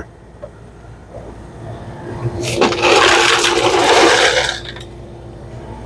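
Ice pouring from a Lancer FS-30 soda fountain's ice chute for about two seconds in a dispense test, a rushing noise that starts about two and a half seconds in and stops cleanly, over a steady hum. The chute now shuts off as it should after the repair of its shorted wiring.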